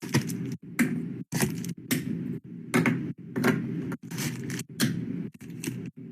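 Close handling noises of objects and packaging: a rapid string of clicks, taps and scrapes over a steady rustle, broken by several abrupt short gaps.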